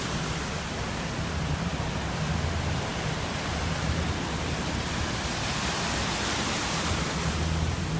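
Cars driving through deep floodwater, a steady rush of churned water. The splash swells as an SUV ploughs past about five to seven seconds in.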